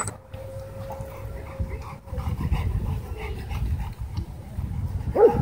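Dogs playing: a dog gives a thin, steady whine for about two seconds, then a single sharp bark near the end.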